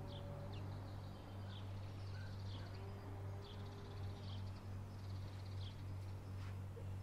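A small bird calling outside, short high chirps that drop in pitch, repeated about once a second, over a steady low hum.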